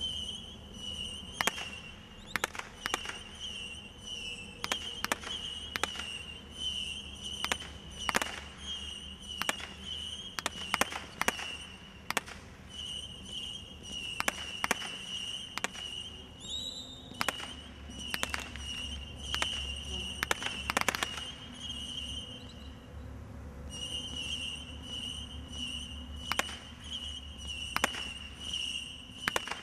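Consumer firework barrage (Brothers Pyrotechnics Xccelerator, a 200-shot Cat 2 combination Roman candle) firing: a string of sharp shots, single or in quick pairs, at an uneven pace of about one or two a second.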